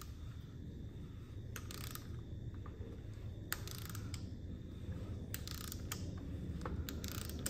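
Electric drill spinning the oil pump of a small-block Chevy through the distributor hole to prime it, running steadily. A short scraping click repeats about every one and a half to two seconds.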